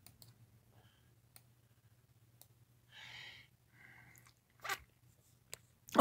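Quiet room tone with a faint steady low hum, a short breathy sound about three seconds in, and a single sharp click near the end.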